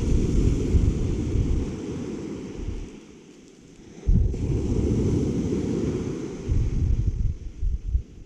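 Wind buffeting the microphone in heavy gusts, a loud low rumble that eases for about a second around three seconds in, then comes back suddenly.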